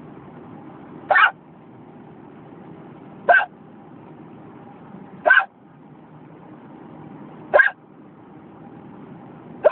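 A person hiccuping at a steady pace, one short, sharp hiccup about every two seconds, five in all, over the steady hum of a car's cabin.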